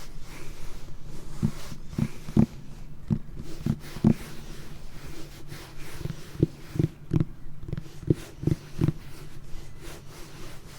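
ASMR tapping at a slow-to-medium pace: two runs of soft, dull taps with a pause of about two seconds midway, over a steady faint hiss.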